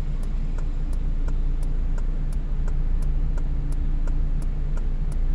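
A car's turn-signal indicator ticking evenly, about three ticks a second, over the steady hum of the idling engine, heard from inside the cabin while the car waits to turn.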